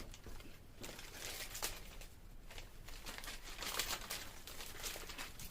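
A small packaging bag crinkling in the hands as it is handled and opened, in irregular bursts with no steady rhythm.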